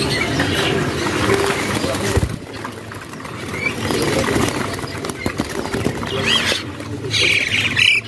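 Zebra doves fluttering and flapping their wings in a wire cage as one is caught by hand, with short bird chirps near the end and voices in the background.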